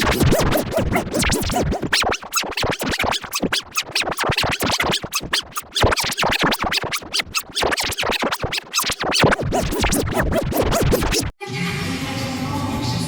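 Sparta-remix music: a children's song chopped into rapid stuttering repeats with a scratch-like sound, several cuts a second. About eleven seconds in it breaks off briefly and gives way to a smoother passage of held tones.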